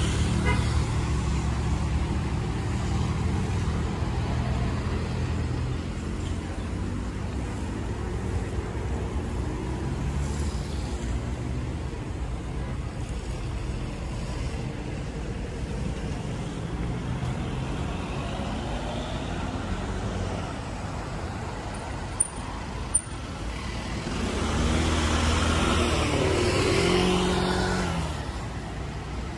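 Road traffic passing along a street: a steady rumble of cars, heavier at the start. Near the end a louder motor vehicle passes, rising and then fading. Two short clicks come a little before it.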